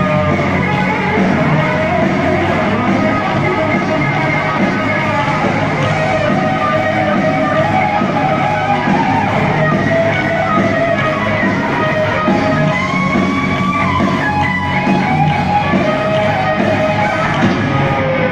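Heavy metal band playing live at a stadium, with distorted electric guitars, bass and drums. It is heard from within the crowd through a phone microphone, loud and steady.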